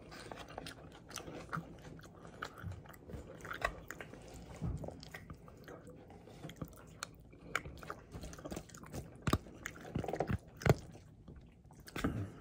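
A person chewing mouthfuls of salad close to the microphone: irregular wet mouth clicks and crunches, with a few sharper clicks in the last few seconds.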